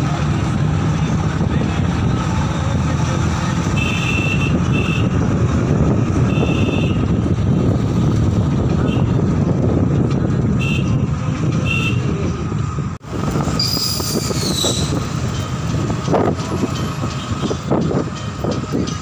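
Cabin noise of a moving road vehicle: a steady engine and road rumble. Short high beeps come several times between about four and twelve seconds in, and a high squeal falling in pitch comes about fourteen seconds in.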